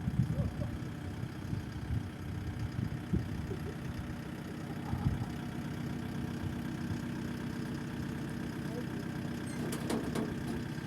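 An engine running steadily at idle, with several sharp knocks in the first half and a short clatter near the end.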